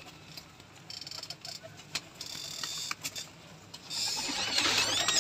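A flock of pigeons feeding on grain scattered over a hard floor: rapid small clicks of beaks pecking, with feathers rustling and brief wing flutters. The sound grows louder about four seconds in.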